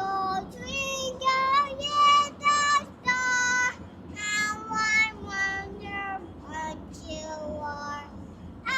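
A young child singing in a high voice, a string of short held notes that slide up and down in pitch.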